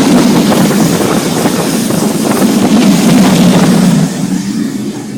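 Loud, steady rumbling noise of a moving passenger train, easing off a little near the end.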